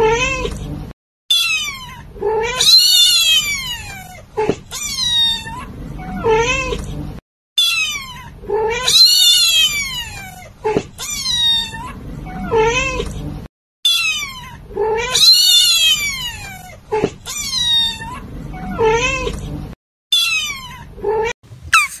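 Domestic cat meowing again and again: drawn-out meows that rise and then fall in pitch, the same run of calls coming round about every six seconds.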